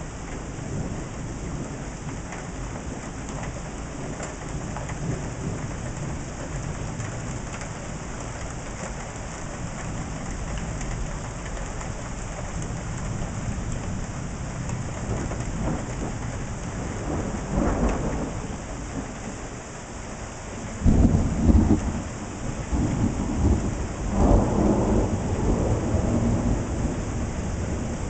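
Steady rain falling during a thunderstorm. A low rumble of thunder comes a little past halfway through, then a sudden loud thunderclap about three-quarters of the way in, followed by more rolling rumbles.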